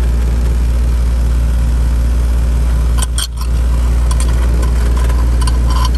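Outdoor AC/heat pump condensing unit running with its newly restarted compressor and condenser fan, a steady loud low hum. Light clicks sound about halfway through and again near the end as a suction gauge is fitted to the service port.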